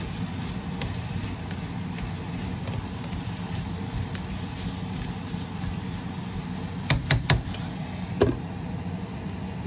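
Spatula stirring chopped bitter melon and onion in a nonstick frying pan over a steady low hum, with a few sharp clacks about seven to eight seconds in as the spatula and glass lid knock against the pan.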